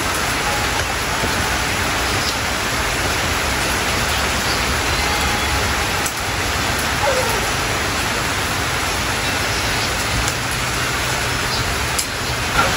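Rain falling steadily, an even hiss without a break.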